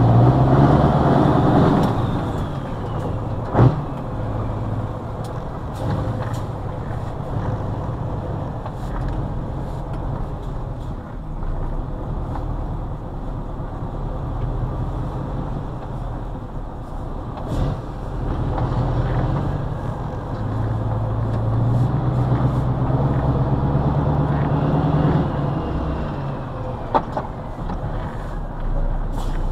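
Scania 142M V8 diesel truck engine heard from inside the cab while driving. The engine note climbs as it pulls and drops back between gears, with a sharp knock a few seconds in.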